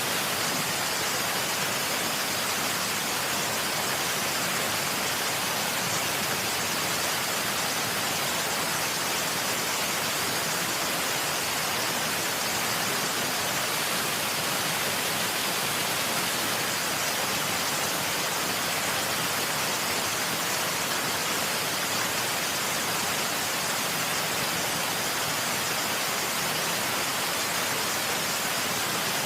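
Waterfall sound effect: a steady, unbroken rush of falling water, strongest in the high, hissing range.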